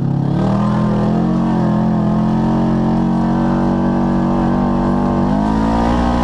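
2012 Polaris RZR 4 900 XP's parallel-twin engine through a full race exhaust, driving under load. The revs climb in the first half second, then hold at a steady high pitch, edging up a little near the end.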